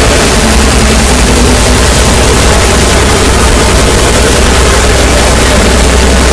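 Very loud, heavily distorted noise, an even hiss spread across all pitches, over a steady low drone. The level never lets up.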